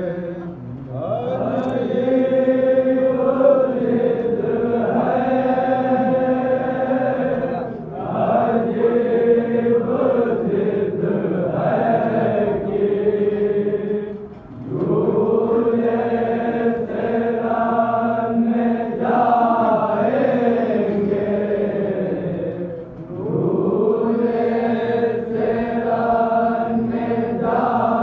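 Noha, a mourning lament for Ali Asghar, chanted melodically in long held phrases that break off briefly about every seven to eight seconds.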